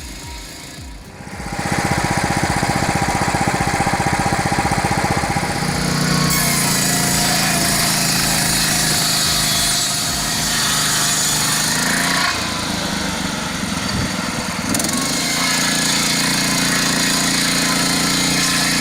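Gas-powered circular saw's small engine starting up about a second and a half in and running at full speed. From about six seconds in the blade is cutting through timber, with a brief easing near twelve seconds before the cut picks up again.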